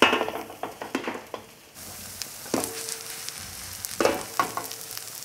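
Kimchi pancake frying in oil in a nonstick skillet with a steady sizzle, while the pan is shaken and slid on the gas-stove grate. This gives scraping knocks at the start, about two and a half seconds in, and again about four seconds in. Shaking loosens the pancake so it moves freely in the pan.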